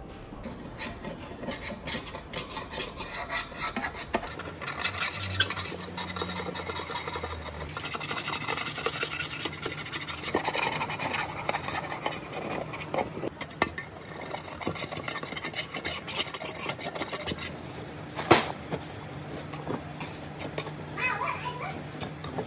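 Metal scraper rasping blistered paint off the sheet-steel fan shroud and recoil starter cover of a Honda GX120 engine, in quick irregular strokes, with one sharp knock near the end.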